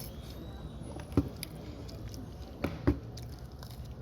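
A person eating close to the microphone: chewing and mouth sounds, with a sharp click about a second in and two more close together near three seconds, over a steady low hum.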